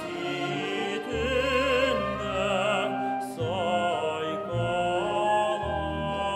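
A male classical singer sings a song with wide vibrato, accompanied by a symphony orchestra of bowed strings with double basses holding low notes. The voice breaks off briefly about halfway.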